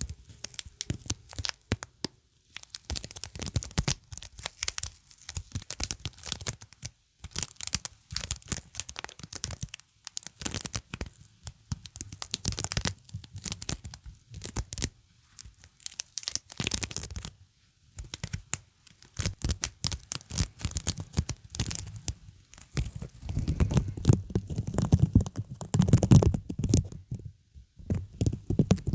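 Sticky surfaces being pressed and peeled apart, giving crackling, tearing sounds in bursts of a second or two with short pauses between them. The peeling gets louder and fuller near the end.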